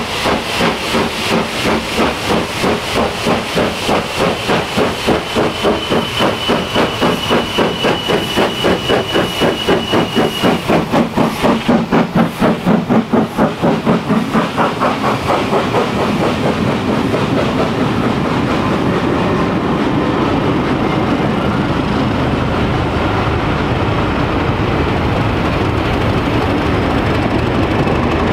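GER Class Y14 0-6-0 steam locomotive running under steam tender-first, its exhaust beating about three times a second with a hiss of steam. A thin, high, steady tone sounds for about four seconds, some six seconds in. About halfway through, the beats fade into the steady rumble and wheel clatter of the passing coaches and the diesel locomotive at the rear.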